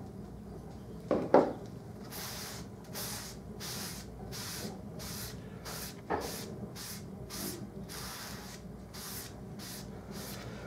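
A cloth wiping wood stain onto a pear-veneered board in quick back-and-forth strokes, a soft rhythmic rubbing of about two to three strokes a second. A double knock sounds about a second in.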